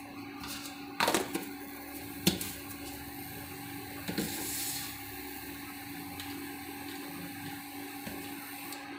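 A spoon stirring dry flour in a plastic bowl, knocking against the bowl a few times with short sharp clicks, the loudest about a second in. A steady background hum runs underneath.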